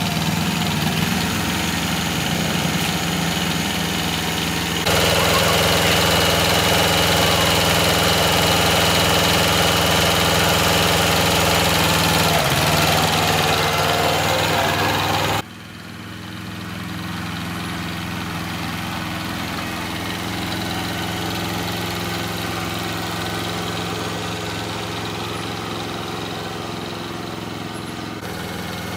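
Vehicle engine idling steadily. Its level and tone change abruptly about five seconds in and again about fifteen seconds in.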